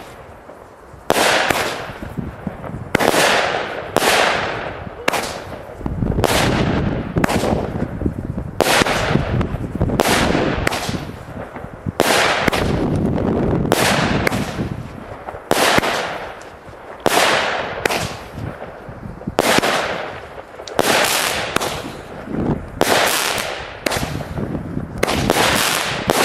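NICO Rhino 16-shot category F2 firework cake firing its shots in a steady series. There are sharp reports about every second or so, launches and bursts, and each one dies away in a short hiss.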